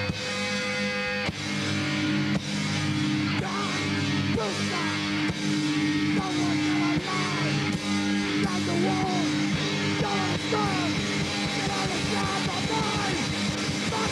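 Punk rock band playing an instrumental stretch: distorted electric guitar chords over bass and drums, with short sliding guitar notes from about four seconds in.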